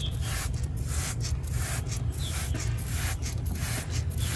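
Soapy water being worked onto a car tire to find a leak: a run of short hissy strokes, a few a second, over a steady low rumble.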